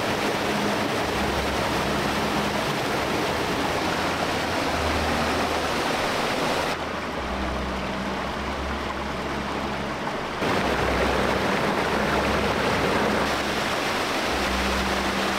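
Rushing stream water tumbling over rocks: a steady, dense hiss, dropping a little in level about seven seconds in and coming back up around ten seconds.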